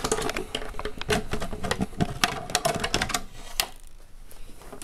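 Quick clicks and rattles of a plastic RC car body shell being handled and lifted off the chassis of an Ofna Hyper 9E electric buggy, dying down about three and a half seconds in.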